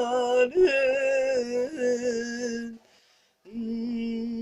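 A man singing unaccompanied, drawing out the words 'ya leil' in long held notes with a wavering vibrato. The voice stops briefly about three seconds in, then takes up another long held note.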